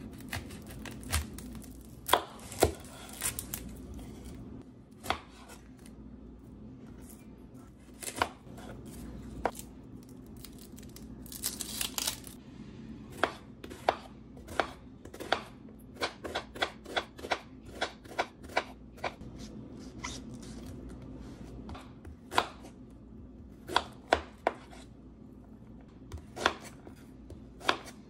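Kitchen knife cutting and dicing an onion on a cutting board: sharp knife strikes against the board, spaced out at first, then in quicker runs of about two to three a second through the second half.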